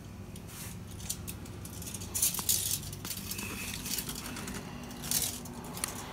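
Rustling and light clicking handling noise, with brief louder rustles about two seconds in and again near five seconds, over a faint steady low hum.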